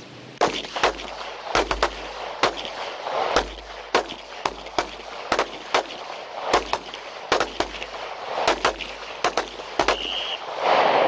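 Several pistols firing on a shooting range, about thirty shots at irregular, uneven spacing from a line of shooters, sometimes two shots close together. The shooting stops about ten and a half seconds in.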